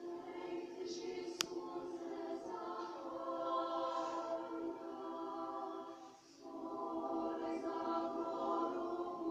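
Women's choir singing a cappella in sustained chords, heard through a television's speaker, with a short breath break between phrases about six seconds in. A single sharp click sounds about one and a half seconds in.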